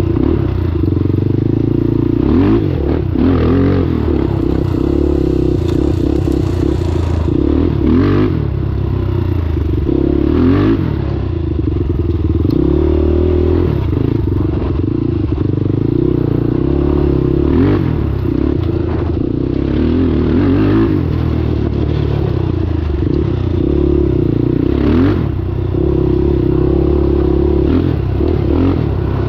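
Honda TRX400EX quad's single-cylinder four-stroke engine running under load while ridden, its pitch rising and falling with the throttle, with scattered rattles and knocks from the machine over rough ground.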